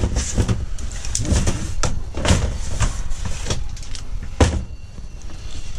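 Knocks and clatter of a ratchet strap being handled and thrown over cargo in the hollow metal body of a van, with a sharp knock about four and a half seconds in.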